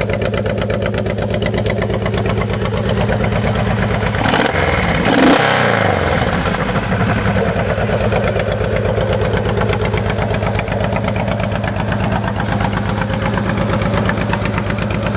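2006 Honda VTX1800's liquid-cooled 1800cc V-twin idling steadily through a Vance & Hines aftermarket exhaust. About four seconds in the throttle is blipped once, the revs rising and falling back to idle within about two seconds.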